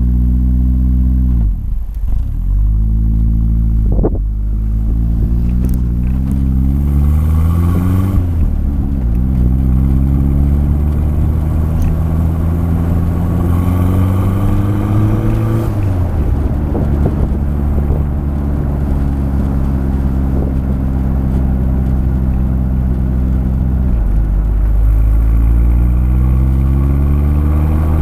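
Exhaust of a Honda City Turbo I's turbocharged four-cylinder engine, heard at the tail of the car, as it pulls away and accelerates through the gears, the revs climbing twice with short breaks at the shifts. It then holds a steady engine speed, drops off about halfway through, cruises steadily, and climbs again near the end.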